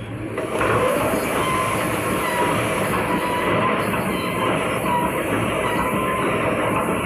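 Automatic welded wire mesh roll machine starting up and running: a loud, dense mechanical din that swells in about half a second in. Under it a whine rises, then holds steady and wavers about once a second.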